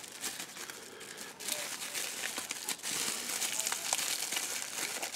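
Bubble-wrap packet crinkling and crackling as it is handled and turned in the hand. It gets louder and busier about a second and a half in.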